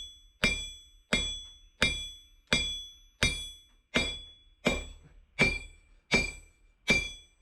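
Hand hammer striking cold steel bar on a 66 lb VEVOR London pattern anvil: about ten even blows, roughly one and a half a second, each leaving a bright, pitched ring from the anvil. This is the bar being flattened cold.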